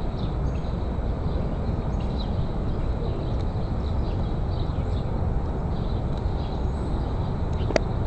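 Steady low outdoor rumble, with faint high bird chirps now and then and one sharp click near the end.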